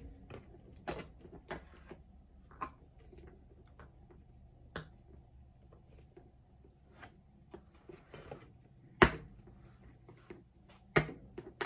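Fingernails picking and scratching at the plastic wrapping and cardboard of a trading-card box that is hard to open: scattered small clicks and crinkles, with two sharper snaps about 9 and 11 seconds in.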